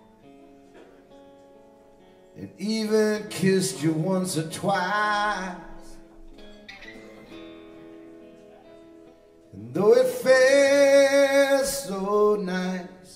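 Live acoustic band: a man's voice sings two phrases over acoustic guitars and bass guitar, the first about two and a half seconds in and the second near the end. Between the phrases the guitars play on quietly.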